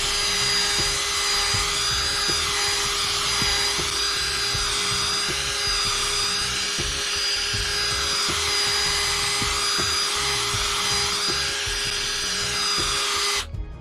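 Electric drill spinning a polishing pad, running steadily at one speed while it buffs cleaner wax into oxidised plastic decals, then stopping suddenly near the end.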